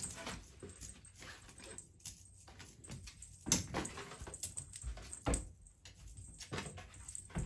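A cat scrambling and batting at a feather wand toy on a wooden floor, with the cardboard multipack carrier around its body rustling and knocking. Irregular thumps and scuffs, the loudest about three and a half seconds in and again a little after five seconds.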